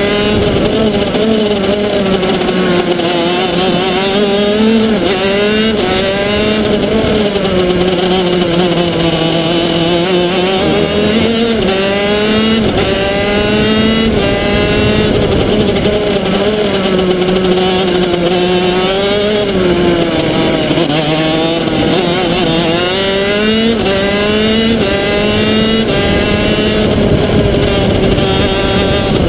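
125 cc shifter kart's two-stroke engine at racing speed, heard from onboard: its pitch climbs under acceleration and drops again and again as it brakes and shifts down for corners.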